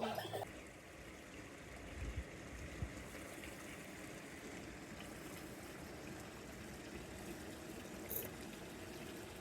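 Running water of a stream, a steady rushing, with a couple of low bumps about two seconds in.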